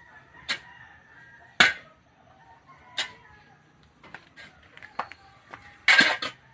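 Sharp scrapes and strikes of a tool working a pile of sawdust, ash and rice hulls as it is mixed into compost. There are about nine in irregular succession, and the loudest and longest scrape comes near the end.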